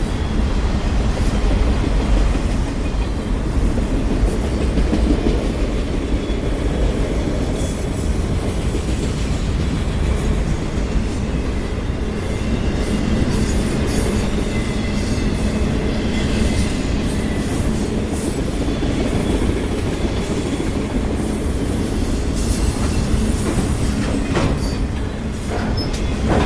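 Freight train of autorack cars rolling past: a steady low rumble of wheels on rail, with a few brief, faint high-pitched wheel squeals and several wheel clicks near the end.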